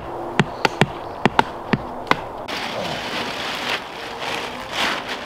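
A stick sweeping and knocking through dry twigs and debris on a pine forest floor to clear ground: a run of sharp knocks, two or three a second, for the first two seconds. Then a softer rustling as a tarp groundsheet is spread and smoothed by hand.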